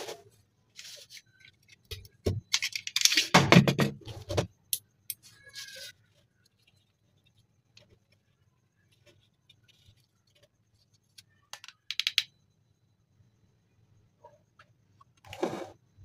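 Hands handling and scraping cardboard pieces on a table: a loud rustling scrape a few seconds in, a quick run of clicks around the middle, and a short scrape near the end.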